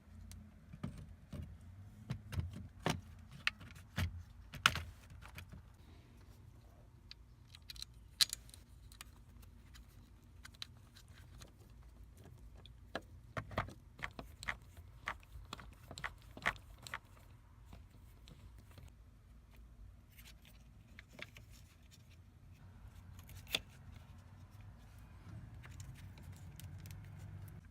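Scattered sharp clicks and light knocks of plastic and metal parts being handled at a steering column during fitting of a turn-signal multi-function switch, in clusters with quieter gaps between.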